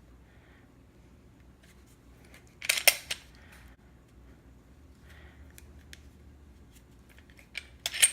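Two short bursts of sharp clicks and rattles from handling a Glock 43X polymer pistol, one about three seconds in and one near the end.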